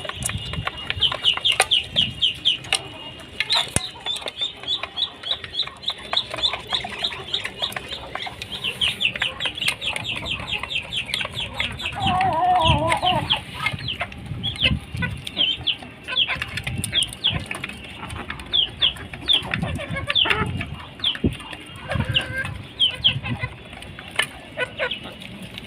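Domestic poultry calling: runs of quick, high-pitched peeps throughout, with a lower, wavering call about halfway through.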